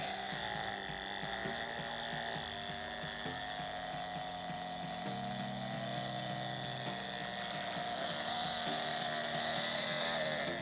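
A 775 DC motor whining at high speed as it drives a homemade PVC jet pump's propeller just under water, churning the water into a jet. The whine wavers a little in pitch and grows slightly louder near the end.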